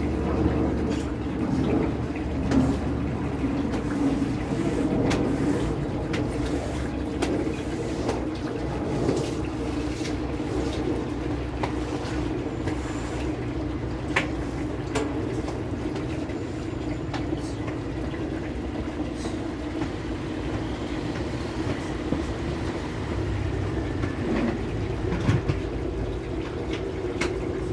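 Washing machine running: a steady motor hum with water swishing and a few small clicks and knocks.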